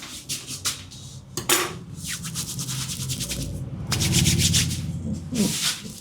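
Hands rubbing briskly over a person's scalp and skin during a head massage, in fast runs of repeated strokes, with one sharper smack about a second and a half in.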